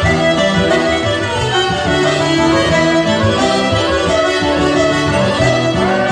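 Live Irish traditional tune played on fiddle, button accordion and acoustic guitar, the fiddle and accordion carrying the melody over strummed guitar chords.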